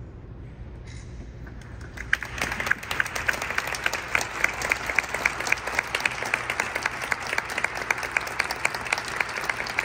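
Audience applauding in a large stone church. After about two seconds of low hum, dense clapping breaks out and continues.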